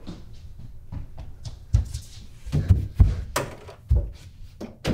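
Heavy thuds against a wooden door: about eight irregular blows in quick succession, starting a little under two seconds in.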